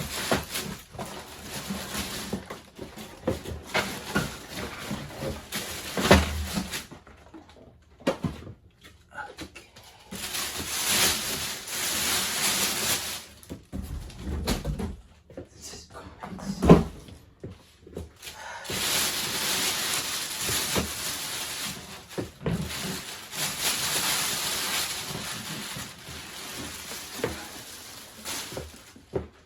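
Printer packaging being handled during unboxing: long stretches of rustling and crinkling, with a couple of sharp knocks, one about six seconds in and a louder one near seventeen seconds.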